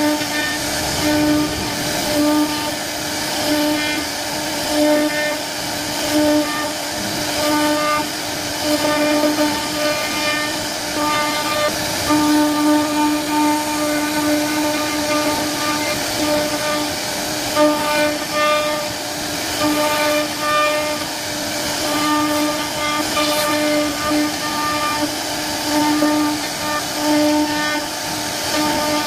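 CNC router carving wood: the spindle's steady whine keeps one pitch and swells and fades every second or so as the bit cuts, over a constant hiss of cutting.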